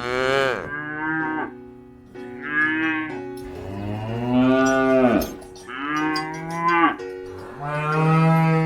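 Cattle mooing: about five drawn-out moos in a row, each a second or so long, several dropping in pitch as they end.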